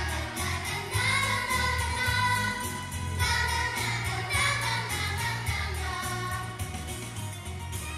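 Children's vocal group of girls singing together into microphones over a recorded backing track with a steady bass beat and percussion.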